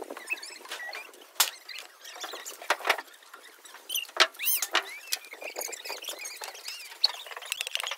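Footsteps and rustling through dry weeds and brush, a scattered run of crackles and snaps, with a few high chirps about halfway through.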